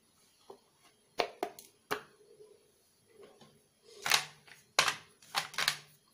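Moulded dark chocolate pieces tapping and sliding on a plate as they are popped out of a silicone mould and moved about by hand: a few sharp clicks a little over a second in, then several short scuffing sounds in the second half.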